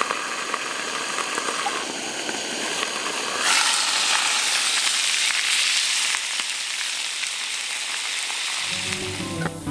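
A steak sizzling and bubbling in a square ceramic-coated grill pan, a steady frying hiss that grows louder about three and a half seconds in as the glass lid is lifted. Plucked guitar music comes in near the end.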